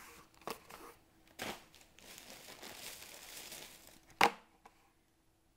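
Cardboard snack boxes handled with crinkling and rustling, then one box slammed down on a wooden desk with a single sharp knock about four seconds in.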